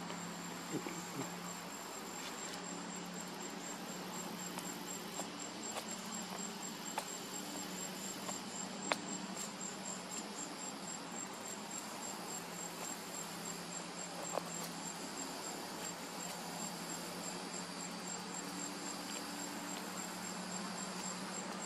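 Insects, crickets or similar, trilling steadily: an even, rapid, high-pitched pulsing that never stops. A few faint sharp clicks stand out now and then.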